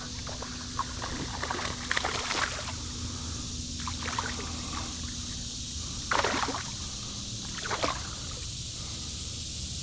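Creek water running steadily, broken by several short splashes and sloshes, the clearest about six seconds in.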